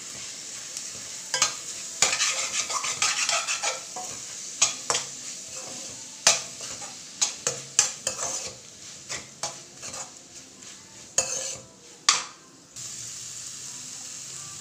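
Onions, shallots and chopped tomato sizzling in coconut oil in an aluminium kadai, while a metal slotted spoon stirs and scrapes, clacking irregularly against the pan. The stirring stops near the end, leaving only the sizzle.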